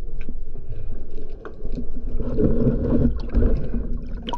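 Underwater sound on an action camera: low, muffled water noise and bubbling with scattered small clicks as a spearfisher handles a speared fish on his speargun shaft. Near the end the diver breaks the surface and the sound opens up into open-air splashing.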